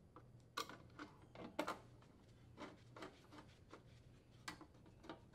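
Faint, irregular clicks and taps of a sheet-metal junction box cover being seated and its screws threaded in with a Phillips screwdriver.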